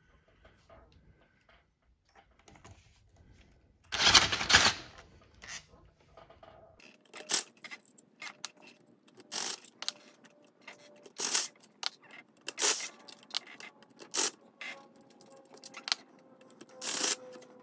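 Small metal clicks and clinks of a hand tool and screws as cover screws are taken out of a motorcycle engine case. A louder metallic clatter lasting under a second comes about four seconds in, then sharp clicks follow every second or two.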